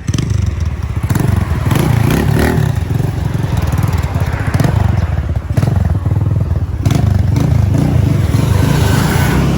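A vehicle on the move: steady engine and road rumble with scattered clattering.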